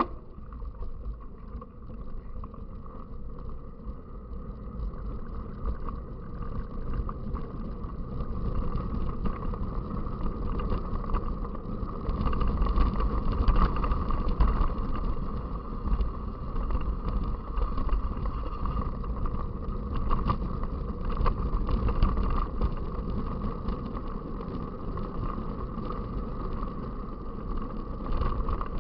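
Wind rushing over the microphone and a mountain bike rattling over rough ground as it is ridden, growing louder about twelve seconds in.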